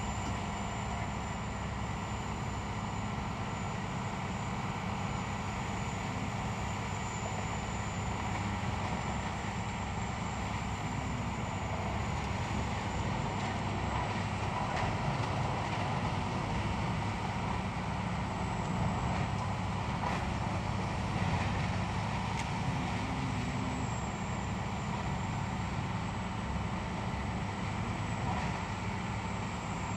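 Machine tool running steadily: a continuous mechanical hum with a thin high whine over it, the level barely changing throughout.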